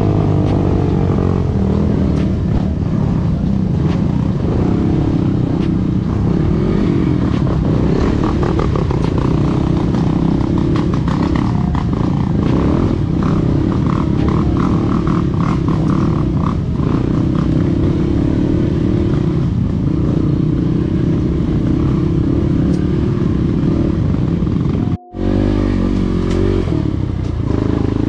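Dirt bike engine running as the bike is ridden over a rough forest trail, its pitch rising and falling with the throttle. The sound breaks off for a moment about three seconds before the end.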